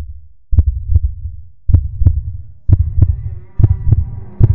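Soundtrack of deep double bass thumps in a heartbeat rhythm, about one pair a second, each with a short click on top. Held synth tones join partway through.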